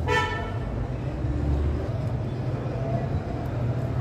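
Steady low rumble of motor traffic, opening with a short pitched sound that fades within half a second.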